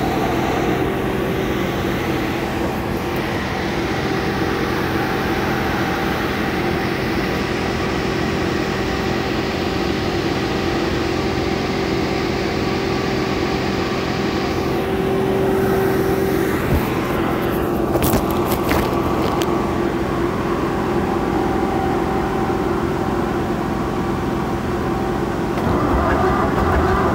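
Soméca SOM 40 tractor engine running steadily after standing a year without being started, with a gas torch flame heating its air intake; it grows a little louder and heavier near the end.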